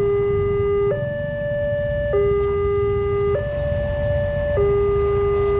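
Railway level-crossing warning alarm sounding an electronic two-tone signal, switching between a low and a higher tone about every 1.2 seconds. This is the alert that a train is approaching and the crossing is closed. Low rumbling noise underneath.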